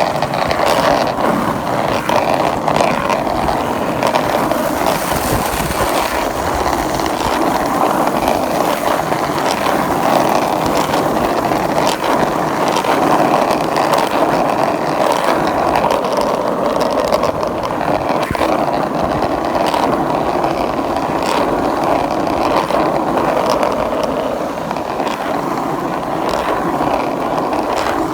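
Skateboard wheels rolling steadily over rough pavement, with scattered clicks and knocks.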